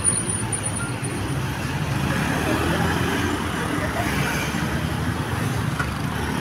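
A large road vehicle's engine, most likely a bus, running steadily amid roadside traffic noise, with faint voices in the background; no horn melody sounds.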